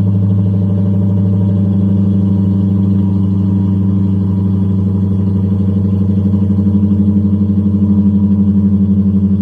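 Exhaust of a 1994 Lexus LS400's 1UZ-FE 4.0-litre V8 running at a steady idle through two Flowmaster Super 10 mufflers, with the original leak repaired and two of the four stock mufflers deleted. The note holds one even pitch and grows a little louder about six seconds in.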